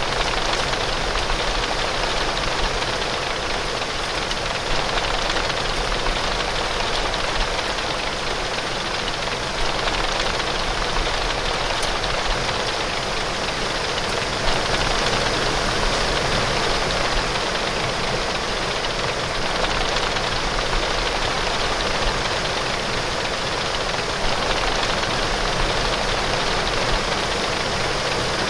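Steady heavy rain pouring against a window pane, an even unbroken hiss.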